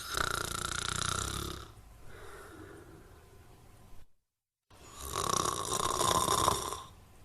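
A sleeping person snoring: two long, buzzy snores about five seconds apart, with a quieter breath between them and a brief sudden dropout to silence before the second.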